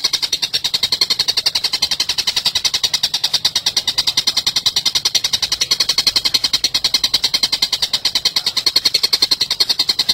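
Oriental dollarbird giving a long run of harsh, rapid chattering notes, about ten a second.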